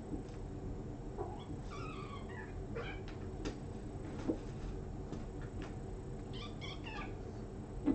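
Cats play-wrestling, giving short, high-pitched mews in three little bursts: about a second and a half in, around three seconds, and again near the end. A few soft knocks and a steady low hum sit underneath.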